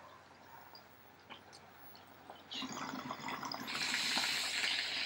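Water bubbling and gurgling in a glass bong as a hit is drawn through it. It starts about two and a half seconds in and grows louder toward the end.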